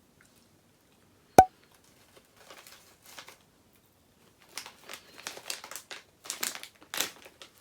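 Plastic snack wrapper crinkling and rustling in bursts as it is handled, loudest in the second half. One sharp, loud click comes about a second and a half in.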